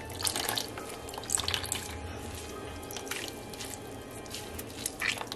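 Milky cassava water pouring and dripping into a plastic tub as wet cassava pulp is squeezed by hand in a cloth sifting bag, with irregular splashes.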